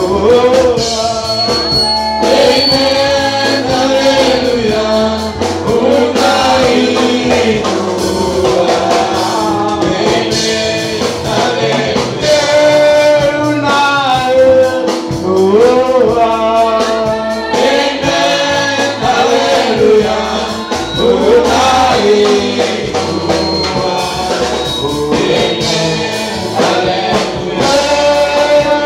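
Gospel worship song: voices singing over instruments with a steady beat.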